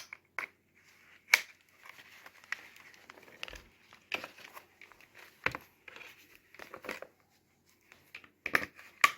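Hard plastic clicks and rustling as protective airsoft goggles with an attached face mask are handled and fitted onto a tactical helmet's mounts. The clicks come singly and irregularly, with soft rustling between them.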